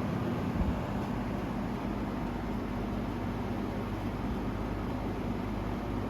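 Vintage ILG box fan running steadily: a rush of moving air over a low, even motor hum.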